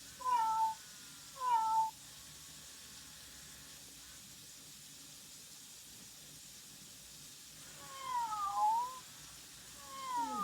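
Robot toy cat meowing four times: two short falling meows in the first two seconds, then two longer meows that dip and rise again near the end.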